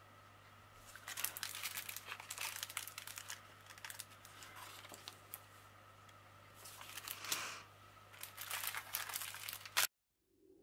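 Small plastic bags of diamond painting drills being picked up and handled, crinkling in irregular bursts that stop abruptly near the end.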